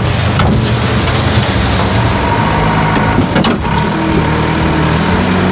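Diesel engine of a Manitou telehandler running hard as it drives its bucket into a silage pile, the engine note shifting partway through, with a brief knock about three and a half seconds in.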